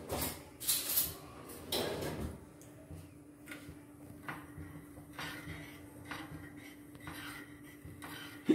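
A steel spoon stirring milk and sugar in a stainless steel saucepan, clinking and scraping against the pan at irregular moments while the sugar is heated until it melts. A faint steady hum runs underneath from about two seconds in.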